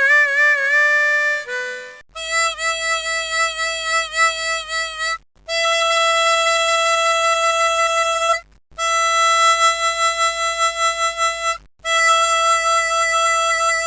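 Harmonica playing long held notes, each two to three seconds, with short breaks between them; the first notes waver with vibrato and shift pitch, the later ones are held steady.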